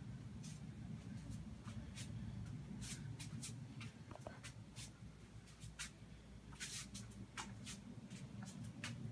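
Handling noise of a handheld camera being carried and swung around: irregular light clicks and rustles, several a second, over a steady low rumble.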